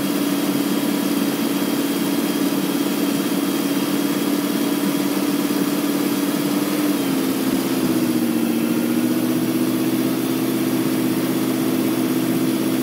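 Car engine idling steadily while the distributor is turned to set the ignition timing; about seven seconds in the idle note changes pitch and settles again.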